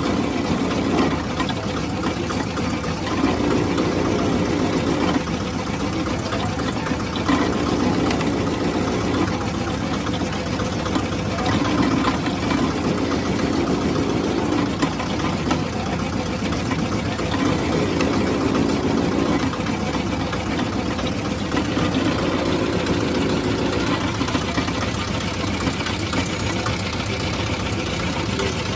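Motor-driven sugarcane juice crusher running steadily, its belt, pulleys and rollers crushing cane stalks. The sound swells every few seconds.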